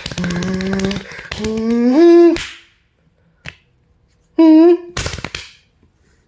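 Mouth-made sound effects of a machine changing: buzzing, clicking hums, the second one stepping up in pitch. After a pause come a short wavering hum and a brief hissing burst.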